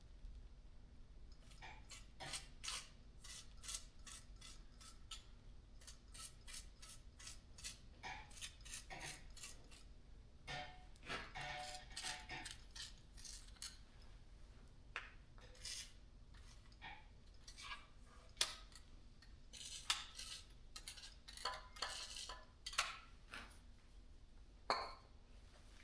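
Irregular light metallic clinks and taps of engine parts and hand tools being handled during a small-block engine teardown, some ringing briefly.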